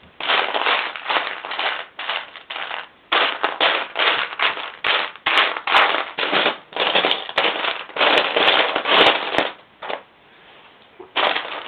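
Loose plastic LEGO bricks rattling and clattering as a hand rummages through a pile of pieces, in dense runs of sharp clicks with short breaks. It stops for about a second and a half near the end, then starts again briefly.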